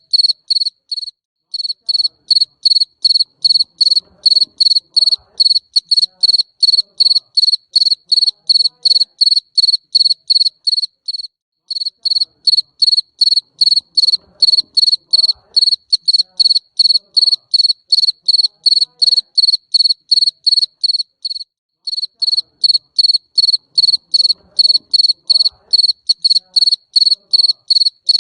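Cricket chirping steadily at a high, even pitch, about three chirps a second, with brief breaks roughly every ten seconds.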